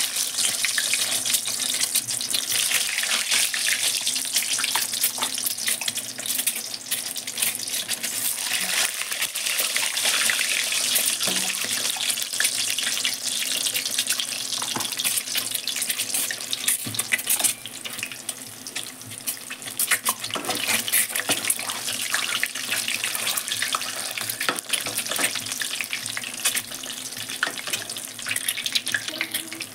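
Whole boiled, peeled eggs frying in hot oil: a steady, dense sizzle with constant small crackling pops, dropping a little in loudness a bit past halfway.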